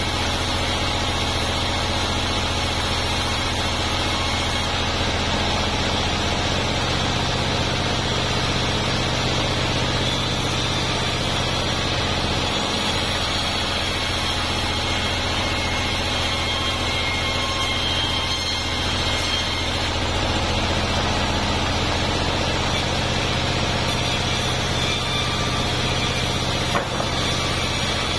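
Large vertical band sawmill running steadily while sawing a durian-wood log: a continuous machine drone with a steady high tone from the blade, and a brief knock near the end.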